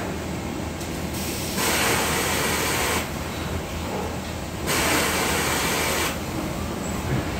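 Steady running noise of a factory floor, broken twice by a loud hissing burst about a second and a half long.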